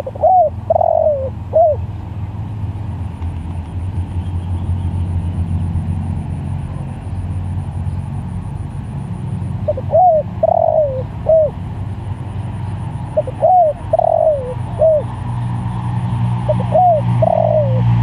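Spotted dove (tekukur) cooing: four phrases a few seconds apart, each a short coo, a longer falling coo and a short closing coo. A steady low hum runs underneath.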